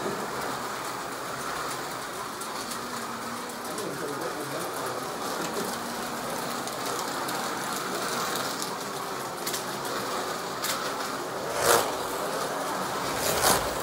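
Slot cars running on a Carrera Digital track: a steady whir of their small electric motors and guide pickups. A few sharp clicks come near the end.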